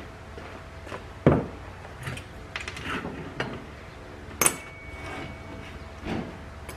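Ceiling fan parts being handled: a series of knocks and clinks as the metal mounting bracket and canopy ring are taken apart. The loudest knock comes about a second in, and a sharp clink a little past halfway leaves a brief metallic ring.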